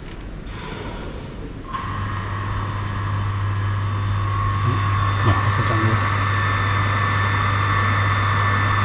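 Electric booster pump for a pressurised solar water heater switching on about two seconds in and running steadily, a hum with a higher whine above it, as it pumps water into the tank. Up close it sounds noisy.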